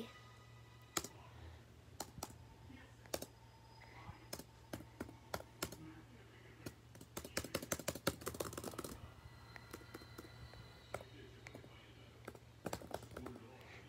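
Laptop keyboard keys being typed on, single keystrokes clicking about a second apart, with a quick flurry of keystrokes about seven to nine seconds in.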